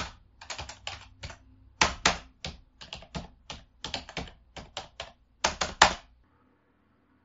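A rapid, irregular run of sharp clicks in small clusters, stopping about six seconds in.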